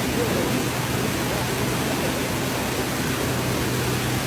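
Steady rush of fast-flowing floodwater, an even wash of noise that does not let up, with a low steady hum underneath.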